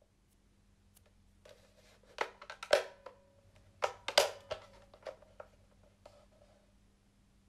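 Clicks and rattles of a plastic portable radio being handled, in two flurries about two seconds apart, over a faint steady hum.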